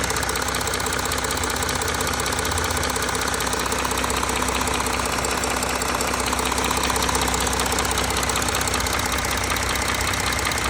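Audi A4 3.0 TDI V6 common-rail diesel engine (CRTC) running steadily while cold, oil below 60 °C, with a fast, even diesel clatter and no change in speed.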